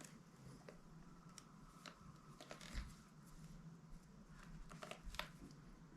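Faint, scattered clicks and short scrapes of a plastic pry tool working around the edge of a tablet's back cover, prying at the snap clips.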